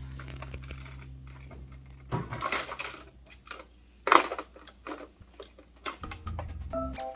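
Hard plastic clicking and clattering as small toy figures and the hinged fuselage of a plastic toy airplane are handled, with one sharp click about four seconds in. A steady electronic tone carries on for the first two seconds, then stops.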